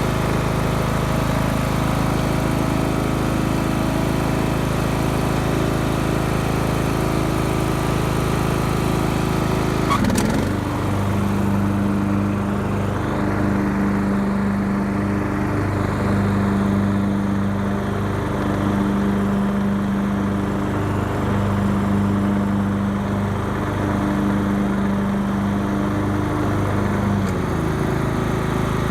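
Craftsman lawn tractor engine running steadily at speed. About ten seconds in there is a click, and a deeper, pulsing hum joins the engine; near the end that hum winds down and fades out.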